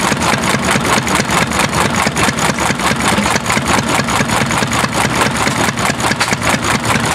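Cushman gas engine running steadily with a rapid, even firing beat.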